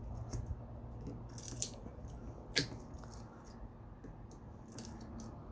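Wire-cutter pliers biting through copper wire: a few sharp snips and clicks of metal, the loudest about two and a half seconds in, over a low rumble.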